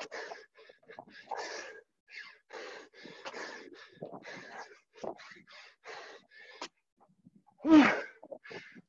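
Heavy, rapid panting from exertion during burpees, short hard breaths coming about twice a second, with a loud voiced gasp near the end.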